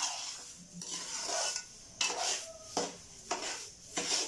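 A metal spoon scraping and stirring dry roasted semolina and sugar in an aluminium pot, in repeated gritty strokes about once or twice a second.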